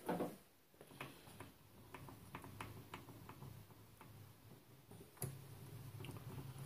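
Faint, irregular light metallic clicks as the lathe's quick-change tool post is handled and clamped, over a low steady hum. A sharper click comes about five seconds in.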